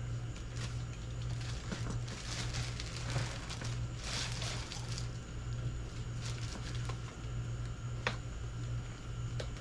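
Packaging being handled: rustling and scraping of foam, plastic and cardboard, with a few sharp clicks, over a steady low hum.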